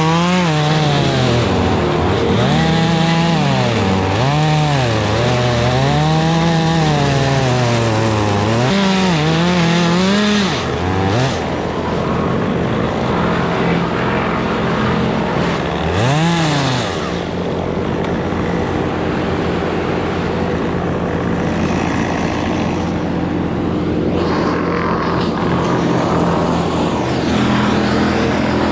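Two-stroke chainsaw revving up and down again and again as it cuts for the first ten seconds or so, then dropping back to running steadily at a lower speed, with one quick rev about halfway through.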